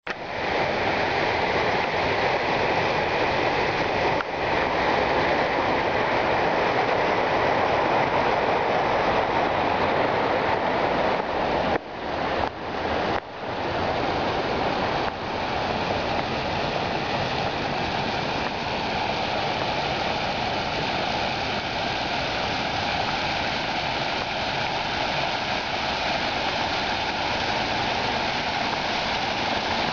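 Fountain jets splashing continuously into a shallow pool, a steady rushing of water. The sound drops out briefly a few times a little before halfway.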